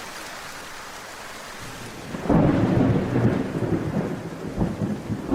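Steady rain hiss, then a long roll of thunder that comes in loudly a little over two seconds in and keeps rumbling.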